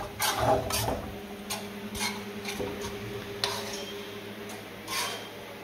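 Metal spoon stirring chunky tomato sauce in a nonstick frying pan, knocking and scraping against the pan in irregular clicks about a second apart, over a steady low hum.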